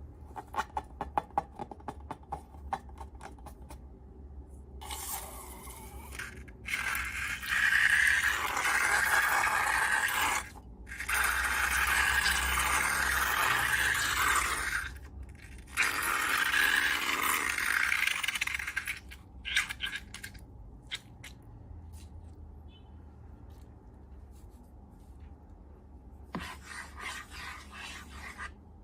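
Scraping in three long, loud stretches of several seconds each, with scattered clicks and taps before and after.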